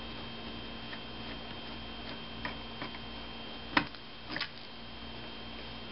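A few light clicks and taps of hands and a screwdriver working on a laptop's plastic screen casing, the sharpest about two thirds of the way in, over a steady electrical hum.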